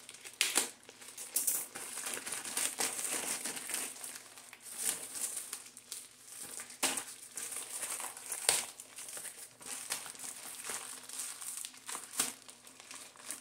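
Packaging being unwrapped by hand: irregular crinkling and rustling, with sharper crackles every second or two.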